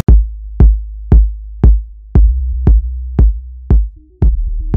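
Electronic music: a drum-machine kick beating steadily about twice a second over a deep bass line. A held synth note comes in near the end.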